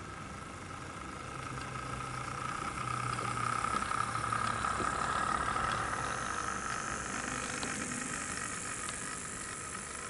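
Model Class 08 diesel shunter running on the layout track: a steady whine over a low hum with a few faint clicks, growing louder towards the middle and then fading.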